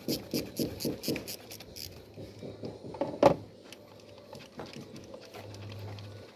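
Ratchet wrench clicking in quick, even strokes, about four a second, as bolts on the engine are worked loose, stopping after about two seconds. A single sharp knock of metal on metal follows about three seconds in.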